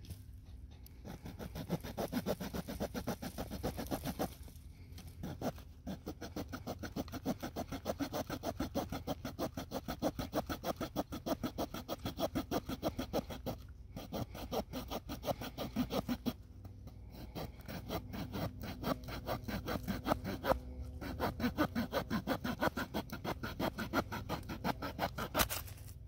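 The small wood saw blade of a Victorinox Swiss Champ pocket knife sawing through a branch about 3 cm thick, in quick back-and-forth strokes with a few brief pauses.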